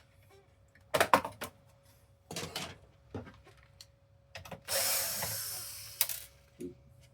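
Clicks and clacks of tools and plastic console parts being handled while a PS5 is taken apart, with a hiss lasting just over a second about five seconds in.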